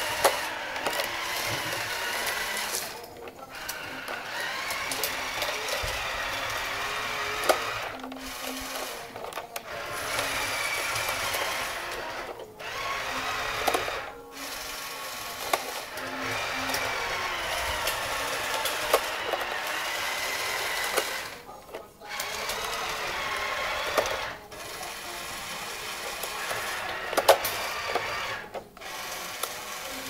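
Electric drive motors and gearing of a New Bright RC Caterpillar D10 toy bulldozer whining as it pushes gravel. The whine wavers in pitch and stops and restarts every few seconds, with a few sharp clicks.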